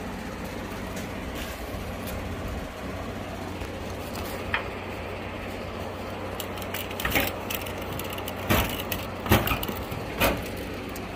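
Scattered sharp knocks and clicks of handling, most of them bunched in the second half, over a steady low hum.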